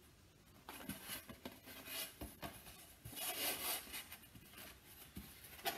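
Rustling and crinkling of a large raw linen cross-stitch piece being unfolded and turned over by hand, with small scattered clicks, louder about three seconds in, and a brief knock near the end.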